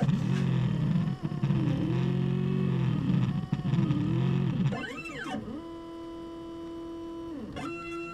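CNC router's stepper motors whining as the machine moves a marker through letter shapes: pitched tones that glide up and down with each change of speed and direction. About five seconds in, a quick high sweep rises and falls, followed by a quieter, steady tone during a straight move, and another sweep near the end.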